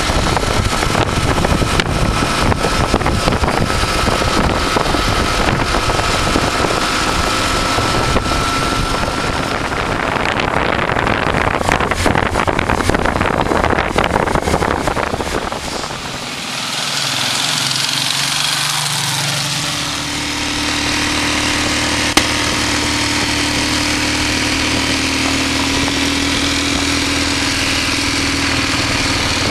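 Motorcycles riding along at road speed: engine noise mixed with wind buffeting on the microphone for the first half. About halfway through this gives way to a steadier engine drone that holds its pitch.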